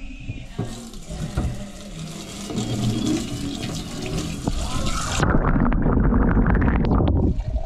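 Kitchen tap running into a stainless steel sink, water splashing over a hand. About five seconds in the stream runs into a clear plastic beaker and gets louder and deeper, then cuts off abruptly near the end.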